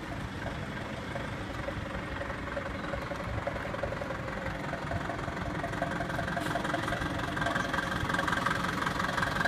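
An engine running steadily at an even pitch, growing louder over the last few seconds.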